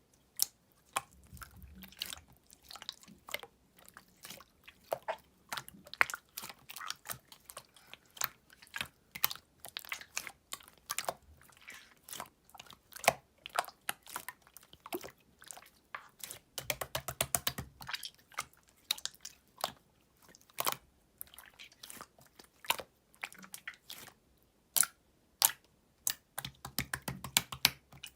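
Clear slime being squeezed and stretched by hand, giving irregular sharp pops and clicks as trapped air bursts. There are two stretches of rapid crackling, about 17 and 27 seconds in.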